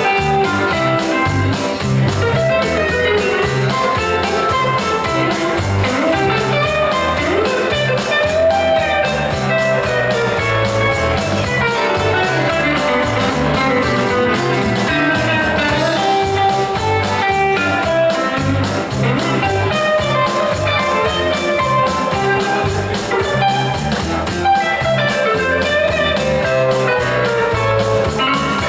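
Instrumental break of a country-style song: guitars playing with bass and drums, no singing.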